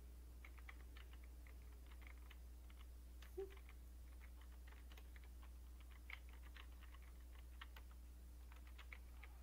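Quiet typing on a computer keyboard: quick runs of keystrokes with short pauses between them.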